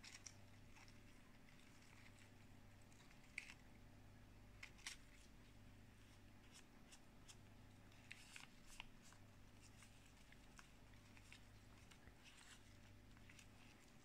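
Near silence over a low steady hum, with a few faint crisp rustles and clicks as fresh mustard leaves are handled between the fingers.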